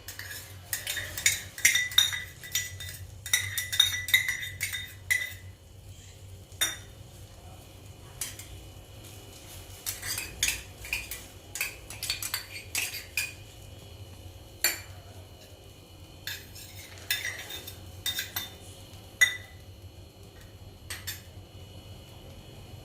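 A metal spoon clinking and tapping against a cooking pot again and again, some strikes ringing briefly, as ingredients are added to the boiling water. The clinks come thick in the first few seconds, then scattered and thinning toward the end.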